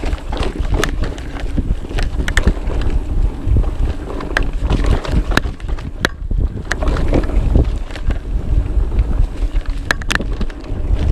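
Mountain bike descending a rough trail: irregular rattling and clattering of the bike over bumps, under heavy wind rumble on the microphone.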